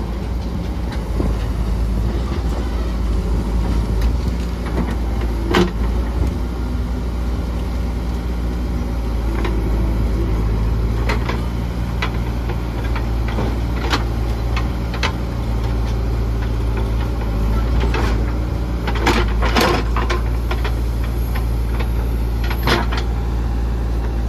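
JCB 3DX backhoe loader's diesel engine running steadily as its backhoe bucket digs wet mud. Scattered sharp knocks and clanks from the digging come over it, several in quick succession about four-fifths of the way through.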